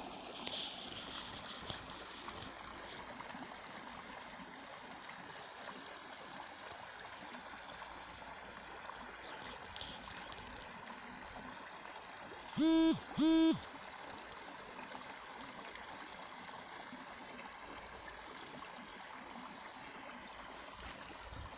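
Creek water running steadily through a beaver dam, an even soft rush. About two-thirds of the way in, two short, loud, pitched tones sound in quick succession.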